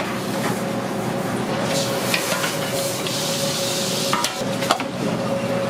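Large-batch cooking: a steady hiss and a steady hum, with a few sharp knocks and clatters of kitchen utensils on a pot, including two near the end.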